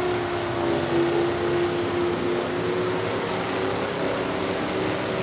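Pickup-truck engines running, a steady drone that holds one pitch.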